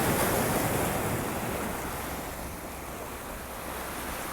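Sea waves rushing and washing. The surge is loudest right at the start and dies away over the next few seconds, with some wind on the microphone.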